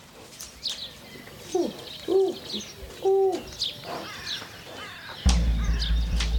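Outdoor birdsong: scattered high chirps and three short cooing notes, like a dove's, in the first half. About five seconds in, a loud, steady low rumble starts suddenly.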